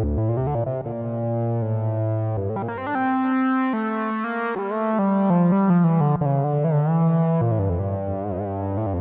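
Sequential OB-6 analog polyphonic synthesizer playing a patch: sustained chords changing over a moving bass line, with a wavering vibrato on the upper notes near the end.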